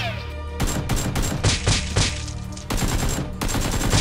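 Rapid volley of gunfire shots, many in quick succession starting about half a second in, over a steady music bed.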